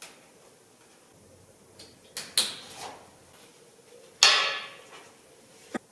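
Sharp knocks and clatters of objects being handled: a pair about two seconds in, and a louder one about four seconds in that rings out briefly.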